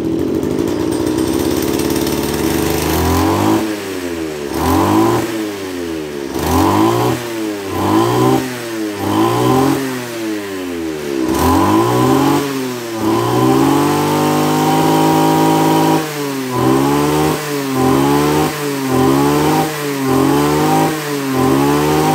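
Kawasaki TJ27 brush cutter's 27cc two-stroke engine running steadily at first, then revved up and down over and over with the throttle. It holds at high revs for a couple of seconds midway, and the blips come quicker toward the end.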